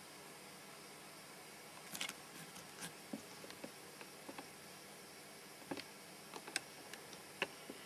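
Faint steady microphone hiss from a camcorder, with a few soft, irregular clicks of the camera being handled and its controls touched.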